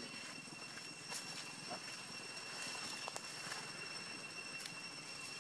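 Faint outdoor ambience: an even low background rumble with a few steady, thin high tones and some faint scattered clicks.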